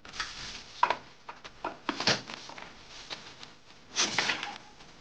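Plastic toy car knocking and scraping on a plastic launch ramp as it is handled and set in place. About four seconds in comes a short burst of clatter as the car is shot off along the ramp.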